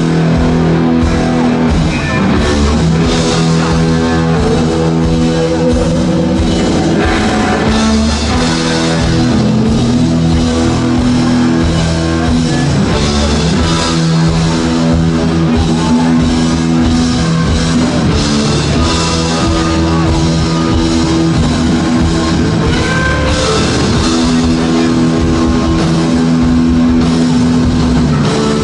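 Rock band playing live on electric guitars, bass and drum kit. Guitars hold sustained notes, with bending lead lines a few seconds in and again past the twenty-second mark.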